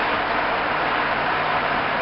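Steady engine and road noise of a truck driving along a street, heard from inside its cab: an even hiss with no change in level.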